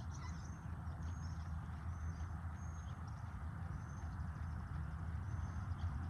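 Outdoor ambience at a pond: a steady low wind rumble on the microphone, with short high chirps repeating about once a second.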